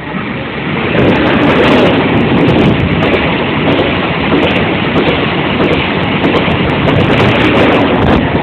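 A train passing close by: a loud, steady rush of rail noise that swells about a second in.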